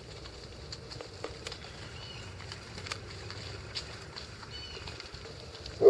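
Month-old Icelandic Sheepdog puppies playing on dry leaves and gravel: light rustling and scattered ticks of paws and twigs, with short bird chirps in the background. A puppy gives one brief, loud yelp at the very end.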